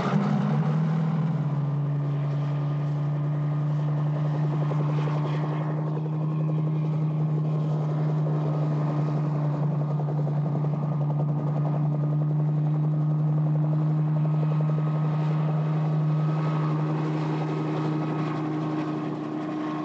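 Helicopter running, a steady low drone of engine and rotor that fades near the end.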